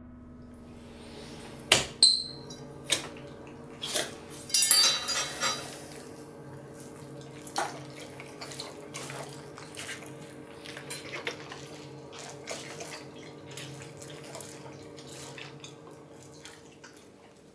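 A raw fish being handled on a hard surface: a series of sharp knocks and clinks, one with a brief ring about two seconds in, then a short scraping burst and a run of smaller ticks. A faint steady hum sits underneath.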